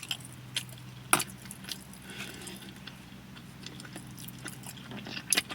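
A few light clicks and taps over a steady low hum.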